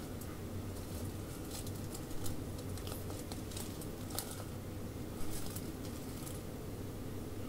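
Common brushtail possum foraging in dry leaf litter: irregular soft crunches and crackles, some in quick clusters, over a low steady hum.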